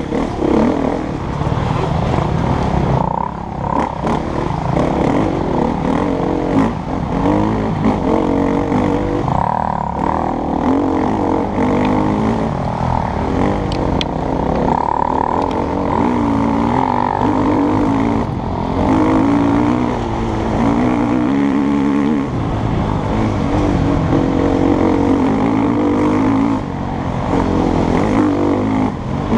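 KTM EXC-F 250's single-cylinder four-stroke engine under way on a dirt track, its pitch rising and falling over and over as the throttle is opened and closed, heard from the rider's helmet camera.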